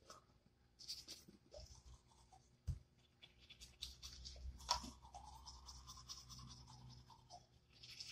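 Manual toothbrush scrubbing teeth, faint, in short scratchy strokes with a few clicks. A faint drawn-out tone runs for a few seconds in the middle.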